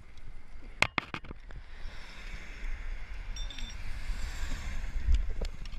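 Wind rumbling on an outdoor microphone with road noise from traffic that swells and fades in the middle, and a few sharp clicks about a second in.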